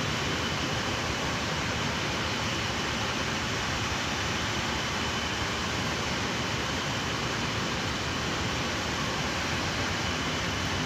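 Steady machinery and ventilation drone inside a ship's engine control room, the running engine-room machinery and air conditioning blending into one even noise with a faint high whine on top.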